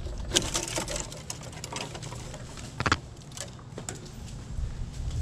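Scattered clicks, knocks and rustles from a climber moving in a tree, with one sharper knock about three seconds in.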